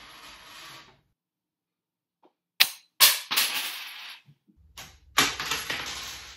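Two quarters launched off a desk by a flicked ruler, heard twice: a sharp click of the ruler striking, then about half a second later the coins hitting a hardwood floor with a clatter that rings on as they spin and settle. A stretch of near silence comes before the first take.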